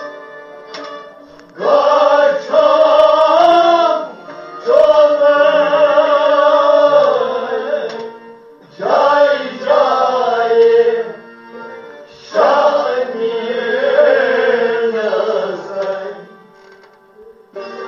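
Kashmiri devotional kalam sung solo in four long, ornamented phrases over instrumental accompaniment. The accompaniment carries on more quietly between the phrases.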